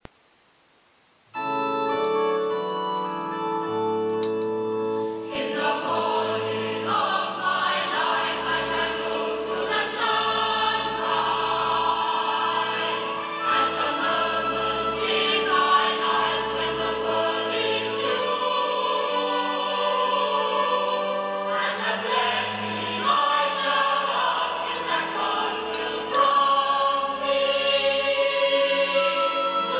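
Recorded organ and choir music: held organ chords start about a second and a half in, and a choir joins singing at about five seconds, with the organ accompanying.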